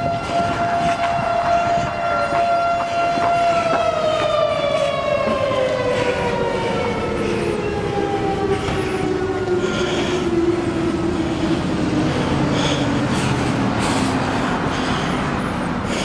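Federal Signal STH-10 civil defense siren sounding a steady single-tone wail. About three and a half seconds in it starts to wind down in a long, smooth falling glide as it coasts down after being switched off. Street traffic noise runs underneath.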